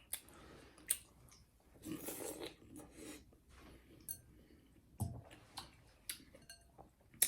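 A person chewing mouthfuls of cooked canned collard greens, with faint wet mouth noises and scattered sharp clicks of the lips and tongue.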